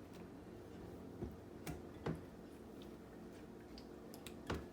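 A few faint, scattered clicks and taps as tomato slices are handled and dipped into egg batter in a bowl.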